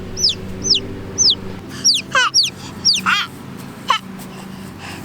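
A baby chick peeping: short, high chirps that slide downward in pitch, about two a second, with a few louder peeps near the middle.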